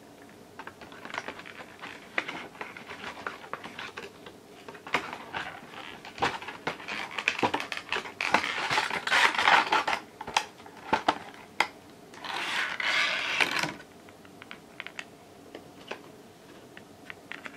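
Plastic blister packaging for a set of AAA rechargeable batteries being handled and opened: a run of crinkles and sharp clicks, loudest about two-thirds of the way in, with a longer stretch of continuous crackling shortly after, then only light handling.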